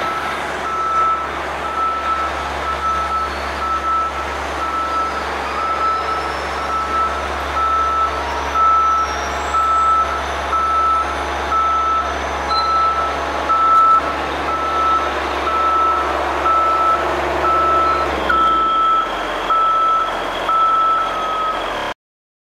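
Construction vehicle back-up alarm beeping steadily, about once a second, over a steady low rumble of city street traffic.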